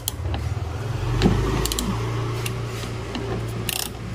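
Ratchet wrench with a 10 mm socket on an extension, clicking in short irregular bursts as it backs off a side-mirror mounting nut, over a low steady hum.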